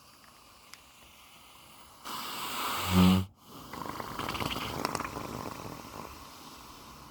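Sedated Arabian mare snoring: a long noisy breath about two seconds in ends in a loud, low snore and breaks off suddenly, then a longer noisy breath fades away. She is drowsy from the sedation given for floating her teeth.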